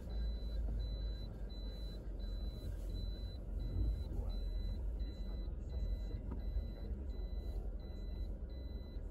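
A car's reverse-gear warning beeper sounding a steady train of short, high, evenly spaced beeps, over the low rumble of an idling car engine.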